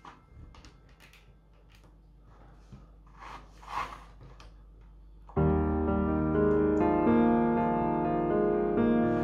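Faint clicks and rustles of plastic Lego bricks being handled and pressed together, then piano music starts abruptly a little past halfway and carries on.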